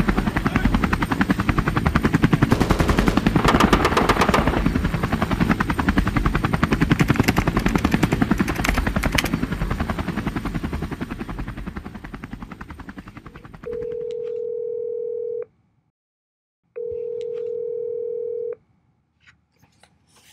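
A fast, even rhythm of heavy thuds and rumble fades out over the first thirteen seconds. Then a telephone ringback tone sounds twice, each a steady beep about two seconds long, as an outgoing call rings.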